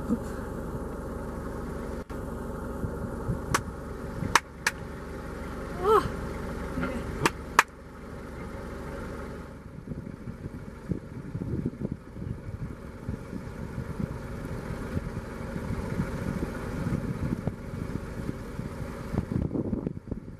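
A vehicle engine idling with a steady low rumble and a few sharp clicks. The steady rumble stops about eight seconds in, leaving uneven low rumbling.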